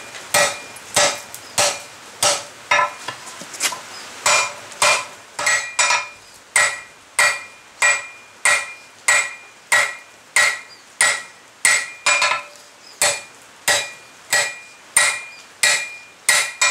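Heavy hand hammer striking red-hot steel flat bar on an anvil in a steady rhythm of nearly two blows a second, each blow ringing briefly. The bar is being drawn down, its jaw section forged to about half its thickness.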